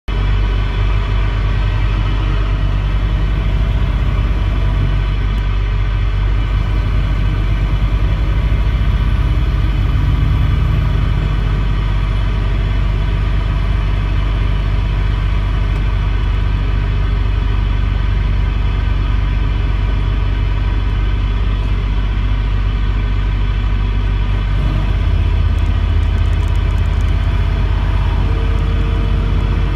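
Steady car engine and tyre rumble heard from inside the cabin of a car driving at highway speed.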